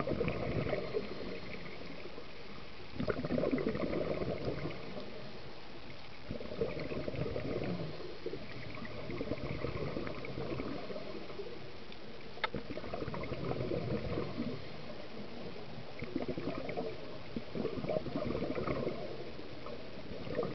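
Scuba diver breathing through a regulator underwater: bursts of gurgling exhaled bubbles every few seconds over a steady hiss. One sharp click about twelve seconds in.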